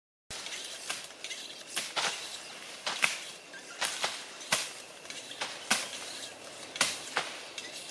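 Machete strokes swishing and chopping through tall grass stalks, about one a second, some in quick pairs.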